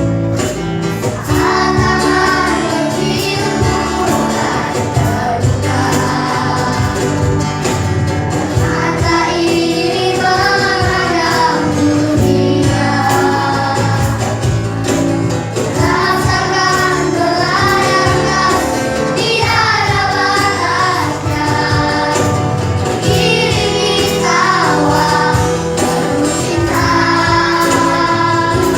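A small group of children singing a song together over instrumental accompaniment, in phrases of a few seconds each. The accompaniment carries on between the phrases.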